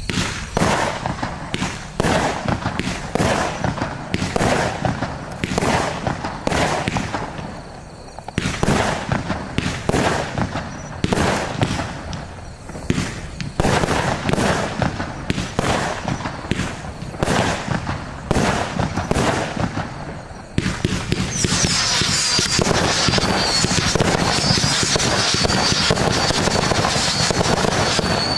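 Albert (Funke/Argento) 'Barbie's Boy' 48-shot consumer fireworks battery firing: a regular run of sharp launch reports and bursts, about two a second. About twenty seconds in, it turns into a dense, continuous crackling as many shots go up together.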